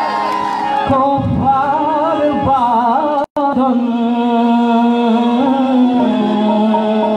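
A boy singing a melodic song with vibrato into a microphone, amplified through a PA, over an electronic keyboard holding long sustained notes. The sound cuts out for a split second a little over three seconds in.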